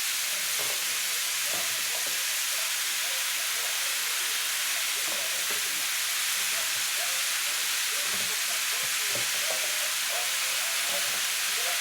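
Potatoes frying in a pan, a steady sizzling hiss.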